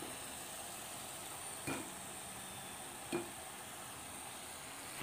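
Soya and spinach koftas deep-frying in hot oil: a steady sizzle, with two light knocks about two and three seconds in.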